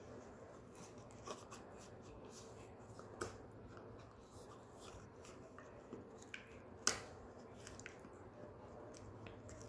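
Shetland sheepdog gnawing a cow-horn chew: faint, irregular clicks and scrapes of teeth on the hard horn, with one sharper crack about seven seconds in.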